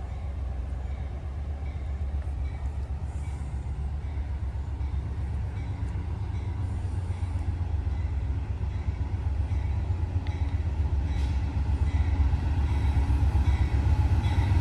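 Approaching Amtrak passenger train led by a GE P42 diesel locomotive: a low engine and rail rumble that grows steadily louder as it nears.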